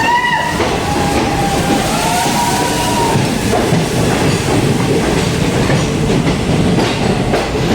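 Passenger train coaches running on the rails, a steady loud rumble and clatter of wheels and carriages, with a thin wheel squeal for about two seconds near the start.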